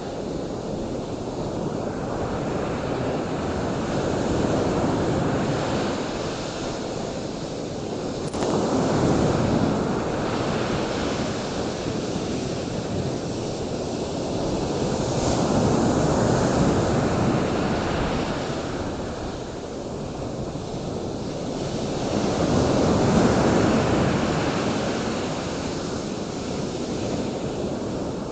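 Ocean surf washing onto a shore: a steady rush of waves that swells and fades about four times, each surge several seconds long.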